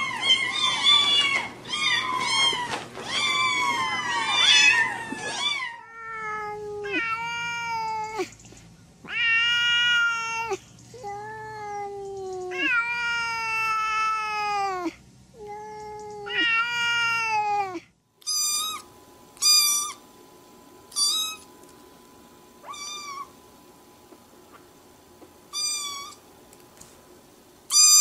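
Domestic cats meowing in three runs: several ginger kittens mewing fast and over one another, then an adult black cat giving a string of long, drawn-out meows that drop in pitch at the end, then a small black kitten giving short, high, widely spaced mews.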